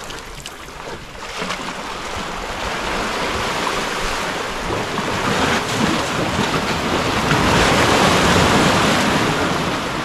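Sea surf washing against the breakwater rocks, a surge that builds over several seconds, is loudest near the end and then eases off.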